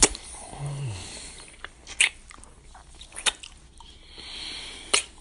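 Wet kissing smacks from a couple: four sharp lip smacks over about five seconds with softer mouth noises between. A short low falling hum comes just after the first smack, and breathy exhaling comes near the end.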